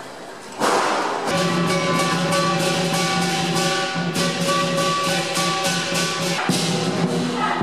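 Lion dance percussion, drum with clashing cymbals and a ringing gong, playing a steady beat that comes in loudly about half a second in.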